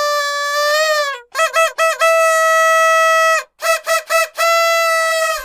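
Cartoon sound effect: a buzzy, honking horn-like note at one steady pitch, played as a long honk, two short honks, another long honk, three short honks and a final long honk.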